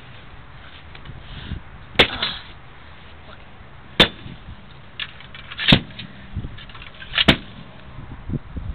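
Four sharp impacts, roughly one and a half to two seconds apart, with fainter knocks between, as the parts of a dismantled computer are smashed on the ground.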